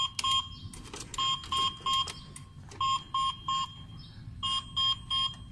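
Forklift's electronic warning buzzer beeping in repeated groups of three short beeps, about one group every one and a half seconds, with the ignition switched on before the diesel engine is cranked.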